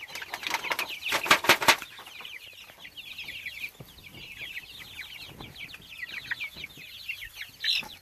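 A flock of young white meat chickens peeping, many short falling chirps overlapping several times a second. In the first two seconds an aluminium foil pan crinkles and rattles as it is tipped out over their trough, and one louder call stands out near the end.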